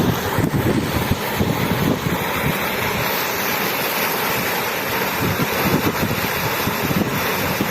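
Running water rushing steadily, a constant full hiss with an uneven low rumble beneath it.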